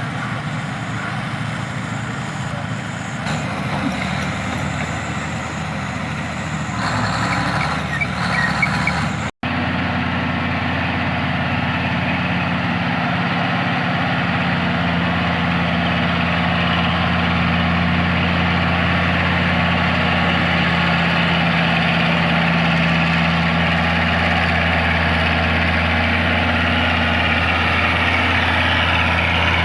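Heavy diesel engine of logging machinery running, growing louder around seven to nine seconds in. After a brief dropout it runs on at a steady, even speed.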